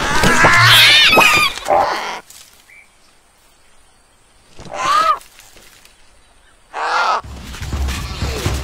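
Cartoon vulture chicks squawking loudly for about the first two seconds, then two single squawks about five and seven seconds in. A low rumble with thuds starts near the end.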